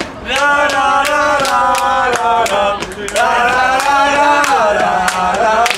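Young men singing a chant-like song together in long held notes, with hand claps keeping a steady beat of about two to three a second.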